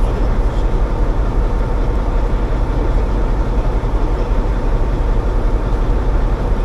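Fishing boat's engine running with a steady, loud low drone.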